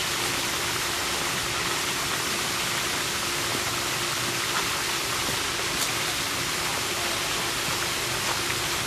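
Steady, even rushing noise with no breaks, and a faint steady hum beneath it.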